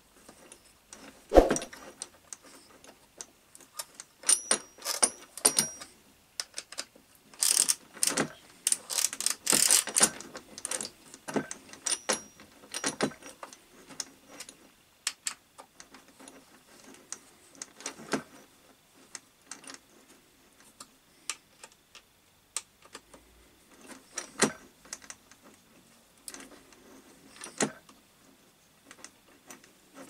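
Metal hand tool clicking and clinking against the brush cutter's metal gear head as a fastener is worked. There is a sharp knock about a second and a half in, then quick runs of light metallic clicks, with scattered single clicks later on.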